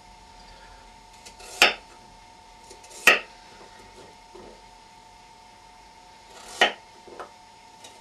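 Kitchen knife slicing through rhubarb chunks and knocking on a wooden chopping board: three sharp knocks spaced a second and a half to three and a half seconds apart, the last followed by a lighter tap. A faint steady hum runs underneath.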